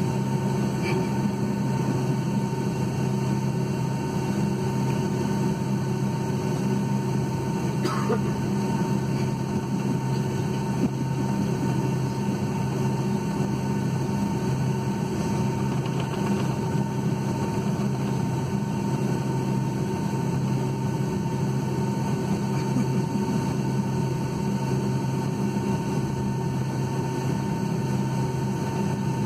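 Steady cabin noise inside a Boeing 757-200 taxiing on idling engines: a deep even hum with a thin steady whine above it.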